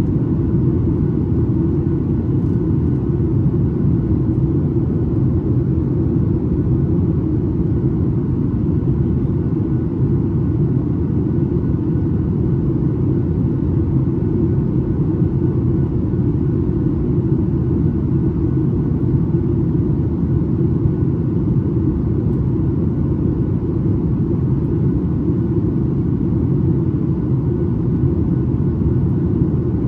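Cabin noise inside a Boeing 737 MAX 8 airliner: a steady, unbroken low rumble of its CFM LEAP-1B engines and the airflow over the fuselage.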